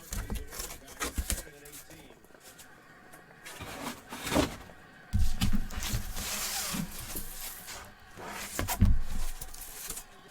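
Irregular knocks, taps and rustling from handling objects on a tabletop, with a longer scraping or rustling stretch about two-thirds of the way through.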